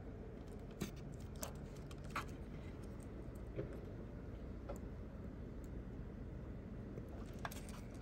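Faint scattered clicks and ticks from fingers handling a small plastic multi-pin wire connector, about six light clicks over a low steady background noise.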